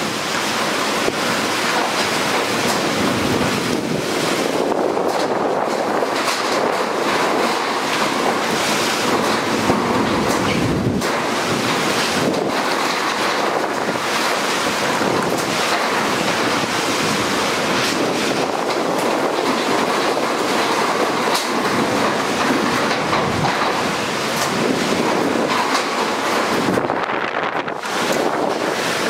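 Cyclone-force wind blowing in a loud, steady rush, buffeting the microphone, with brief sharp clatters now and then.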